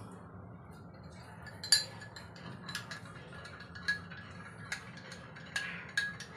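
A metal spoon clinking against a drinking glass while a drink is stirred: irregular light clinks, with one sharper strike about two seconds in, over a steady low hum.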